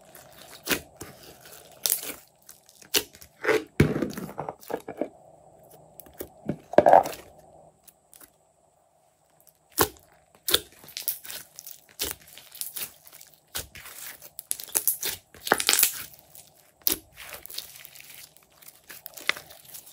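Hands squishing, pressing and stretching glossy green slime, giving sticky clicks, pops and crackles at irregular intervals, with a short pause about eight seconds in.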